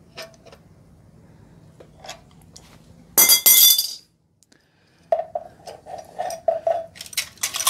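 Steel timing chain and cam sprockets clinking and rattling as they are handled and fitted on an Ecotec engine, with a loud ringing metallic clatter about three seconds in. A quick run of clicks follows after a short dropout.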